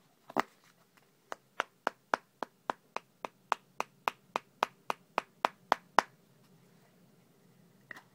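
A tin of Skoal mint moist snuff rapped over and over with the hand, about nineteen sharp strikes at close to four a second, the usual way of packing the tobacco in the can. The strikes stop suddenly about six seconds in, and two fainter knocks follow near the end.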